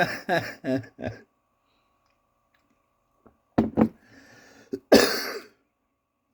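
A man coughs: a sharp double cough about three and a half seconds in, a breath, then a harder cough around five seconds in.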